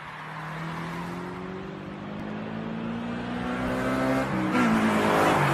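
Car engine accelerating hard as it approaches, its pitch climbing steadily and getting louder, with a brief break in the climb about four and a half seconds in.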